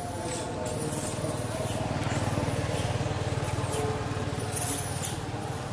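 Low rumble of a motor vehicle engine running close by, swelling in the middle and easing toward the end, with a few short, very high squeaks near the start and again near the end.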